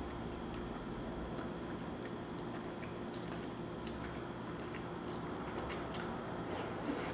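Close-up mouth sounds of slurping and chewing cheesy spaghetti: scattered short, wet smacks and slurps over a steady low background hum.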